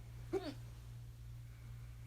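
A single short voiced hiccup, a quick pitched 'hic' about a third of a second in, over a steady low hum.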